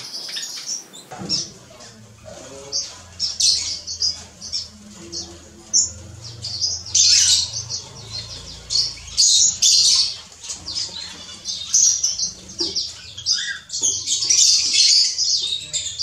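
Small aviary finches and waxbills chirping and twittering, many short high calls overlapping one another.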